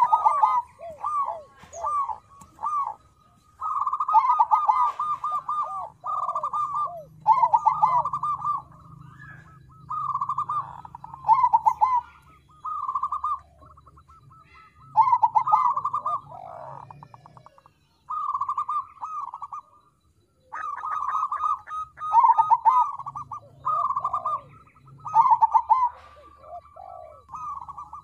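Crossbred zebra dove (perkutut crossing) singing: phrase after phrase of quick, bubbling coos, each about a second long with short gaps between.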